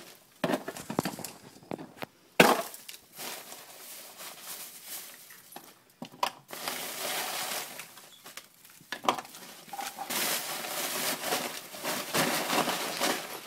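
Chunks of dry ice clinking and knocking as they are handled and dropped into a plastic juice bottle, with a plastic bag crinkling in between. A sharp knock about two and a half seconds in is the loudest sound.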